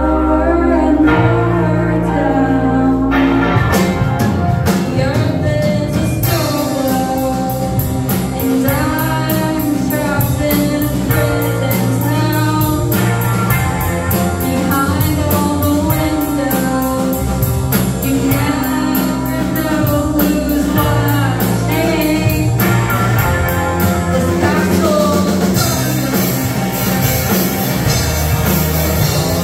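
Live rock band: a woman singing over electric guitar, bass, keyboard and drums. The drums come in with a steady beat about six seconds in, and the sound grows fuller near the end.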